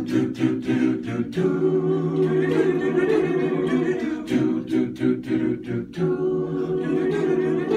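Men's chamber choir singing a cappella in close harmony, holding chords that break off in short rhythmic syllables.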